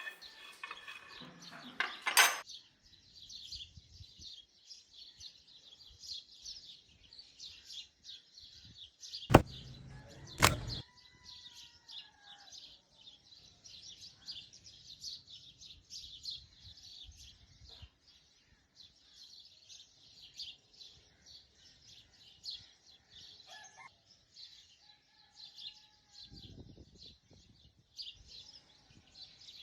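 Small birds chirping continuously, with a few falling whistled calls. Sharp knocks about two seconds in and twice around nine to ten seconds in; the knock near nine seconds is the loudest sound.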